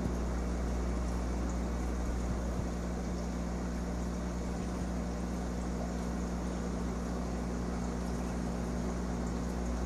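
Steady hum of running aquarium equipment, with a few constant low tones under an even hiss that does not change.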